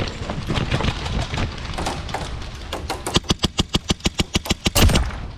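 Airsoft guns firing: a few scattered shots, then about three seconds in a fast full-auto burst of sharp cracks, roughly ten a second, lasting about two seconds.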